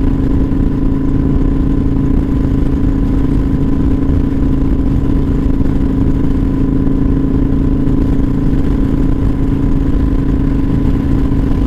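Kawasaki Vulcan 900 Custom's V-twin engine and exhaust running at a steady cruising speed, holding one even pitch, with wind rush.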